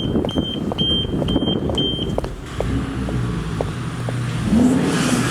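A train of short high-pitched beeps, about two a second, that stops about two seconds in. Then a motor vehicle's engine running low and steady.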